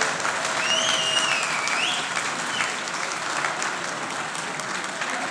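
Audience clapping as a tamburica band's piece ends, with a sliding whistle about a second in; the applause eases off toward the end.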